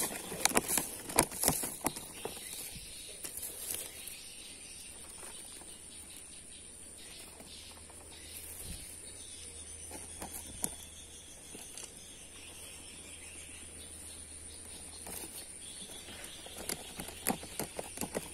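Brushing and rustling of grass and palm fronds with small clicks of handling in the first few seconds and again near the end, over a steady high-pitched insect drone from the surrounding vegetation.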